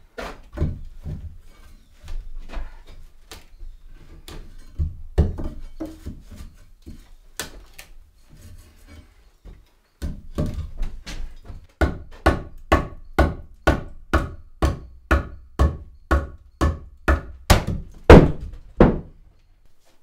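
Hammer knocking on wood: scattered, irregular blows at first, then a steady run of strikes about two a second through the second half, each with a short ring.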